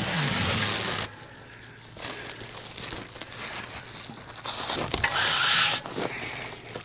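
Plastic bale-wrap film crinkling and tearing as it is handled, in two loud bursts: one about a second long at the start, another about five seconds in, with quieter crackling between.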